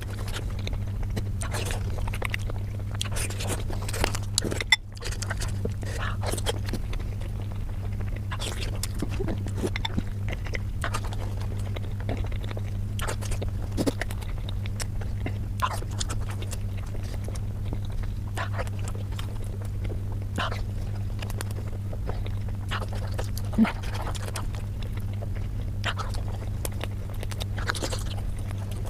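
Close-miked mouth sounds of a person chewing pork momos (steamed dumplings): scattered wet clicks and smacks over a steady low hum.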